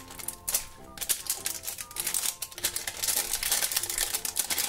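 Plastic shrink-wrap crinkling as it is peeled and slid off a hard plastic Easter egg, with a rapid run of small crackles, over background music with a simple melody.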